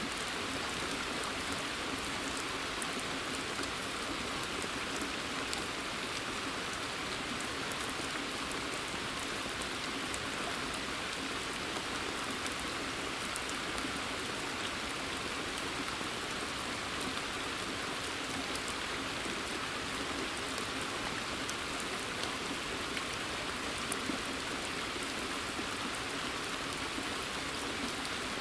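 Steady rain falling in a forest, with single drops ticking sharply here and there.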